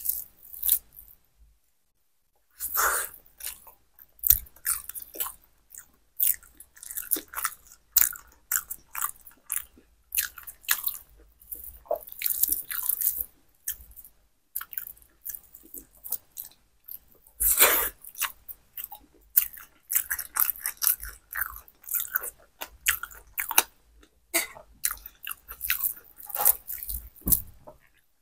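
Close-miked eating sounds: a person chewing and biting mouthfuls of khichuri (soft rice and lentils) eaten by hand, a rapid run of short clicks and smacks with the odd crunch. A second or two of quiet comes near the start before the chewing begins.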